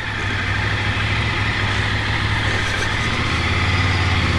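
Ducati Monster 797's air-cooled L-twin engine running steadily at low road speed under way, over a haze of wind and road noise, growing a little louder toward the end.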